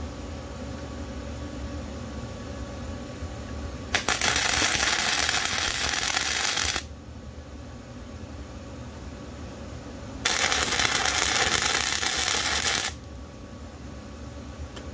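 Flux-core wire-feed welder arc crackling in two bursts of about three seconds each, a few seconds apart: tack welds on a steel bracket.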